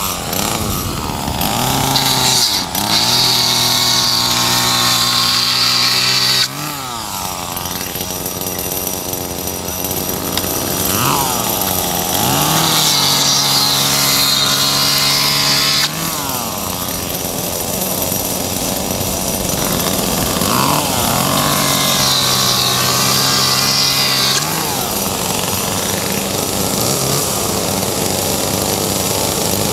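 Several running two-stroke chainsaw engines, their pitch swelling up and falling back again and again. The overall level drops suddenly twice, about six seconds in and again near sixteen seconds.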